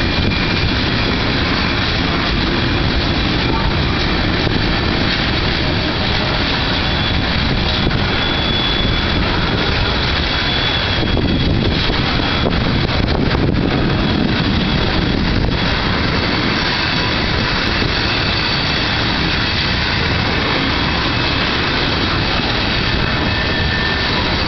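Freight train cars, mostly tank cars, rolling past close by: a steady rumble of steel wheels on rail, with faint high tones coming and going.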